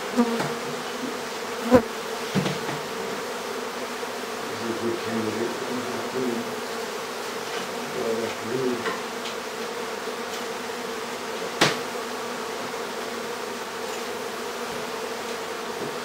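A large colony of honeybees buzzing steadily as their hive is being taken out of the wall, the swarm stirred up around the opened comb. Two sharp knocks stand out, one about two seconds in and one near twelve seconds in.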